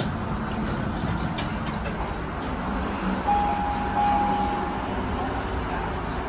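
Heights glass hydraulic elevator travelling, its hydraulic drive giving a steady low hum and rumble. About three seconds in, a single steady beep sounds for about a second and a half.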